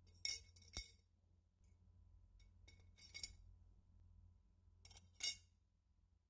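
Metal tweezers and small brass lamp-burner parts clinking against a glass jar as the parts are set inside: a few sharp clinks in quick pairs, one with a dull knock about a second in, more about three seconds in and again near five seconds.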